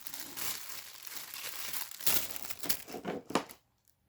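Packaging crinkling and rustling as items are pulled out of a box during unboxing, with a few louder crackles near the end before it stops suddenly.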